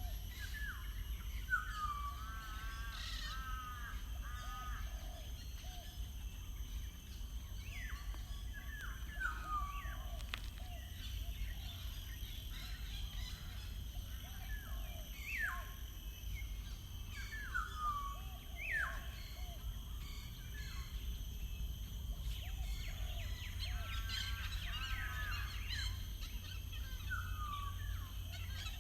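Songbirds singing outdoors: short whistled phrases, mostly sliding downward, repeated every few seconds, with a steady low rumble underneath.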